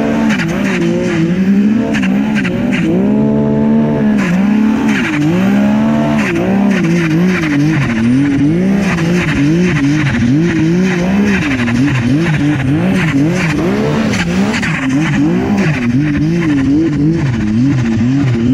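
2018 Arctic Cat King Cat snowmobile's two-stroke engine, fitted with a Precision EFI 290 hp kit, revving up and down continually under throttle while riding through deep powder; the pitch keeps rising and falling every second or so.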